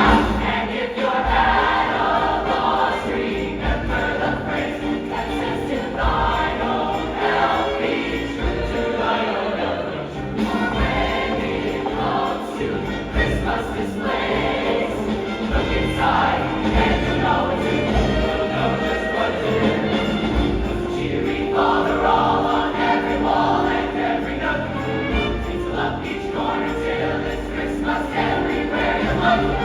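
A choir singing a holiday song in phrases over a steady instrumental accompaniment with a regular low beat.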